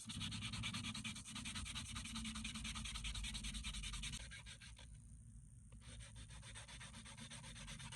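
Nail file rasping over an acrylic nail in quick, even strokes. The filing is louder for the first four seconds, then goes on more softly, with a brief pause about five seconds in.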